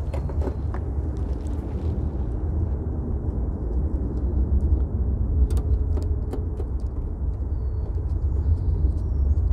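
Steady low outdoor rumble, with a few light clicks from the aerial's top collar and nut being fitted by hand into the wing, near the start and again about halfway through.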